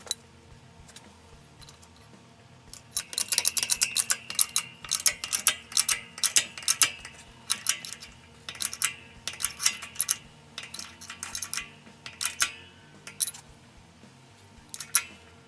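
Quick, irregular metallic clicks and clinks as a new wheel stud is pressed into a Willys brake drum hub on a hydraulic shop press. They start about three seconds in, come thick for several seconds, then thin out near the end.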